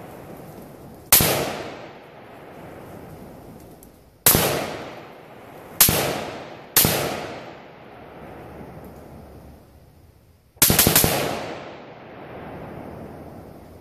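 Rifle shots: four single shots spaced one to three seconds apart, then three in quick succession near the end, each with a sharp crack and an echo that dies away over about a second.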